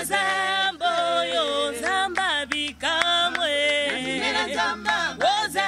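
A small group of voices singing a cappella in harmony, moving together through short held notes with sliding changes of pitch.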